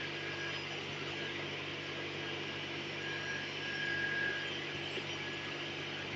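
A steady low mechanical hum with hiss, and a faint high whistling tone that comes and goes.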